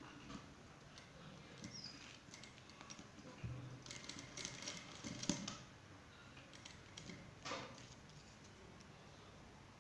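Quiet fabric rustling and small scattered clicks from hands handling cloth at an industrial sewing machine, with a denser run of clicks about four to five seconds in.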